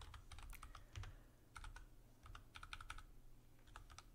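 Quiet typing on a computer keyboard: several short runs of keystrokes with brief pauses between them.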